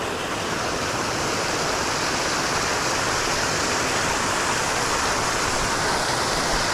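Creek water rushing steadily, the creek running full after rain.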